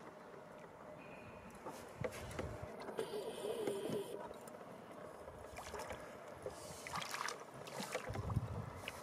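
Water splashing as a hooked barbel thrashes at the surface and is drawn into a landing net, with faint scattered clicks of rod and net handling.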